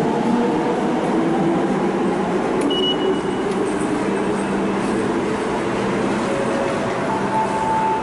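Short, high electronic beep of a station ticket gate accepting a tapped Suica IC card, about three seconds in. It sits over loud, steady station background noise with a low hum.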